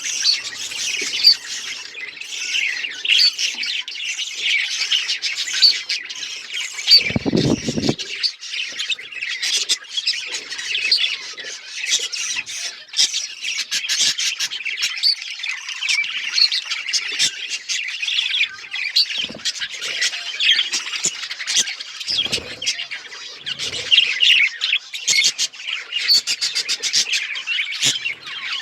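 A flock of budgerigars chirping and chattering continuously, many overlapping squawks and warbles, with a brief low rumble about seven seconds in.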